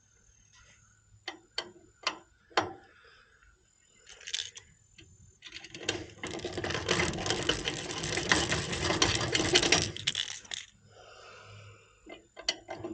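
Handheld deburring tool scraping around the inside of a copper refrigerant line's end in quick rasping strokes for about four seconds, after a few light clicks and taps. It is reaming off a burr so a pressure-switch fitting will slide into the pipe.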